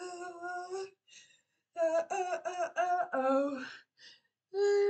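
A single voice singing unaccompanied: a held note, a short pause, then a run of short wavering notes, and a long held note starting near the end.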